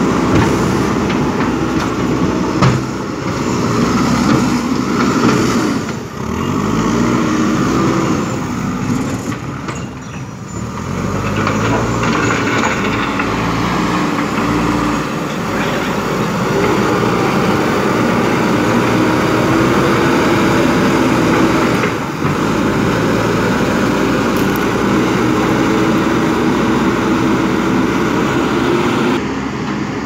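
JCB backhoe loader's diesel engine running hard while the machine pushes soil. Its pitch dips and rises a few times in the first half, then holds steady at high revs.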